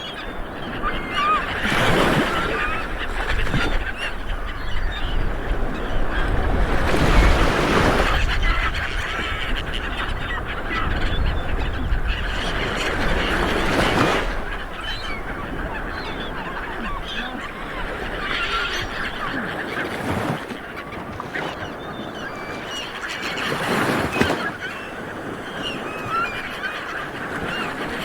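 Small waves breaking on a beach, the surf swelling and easing every few seconds, with birds calling over it.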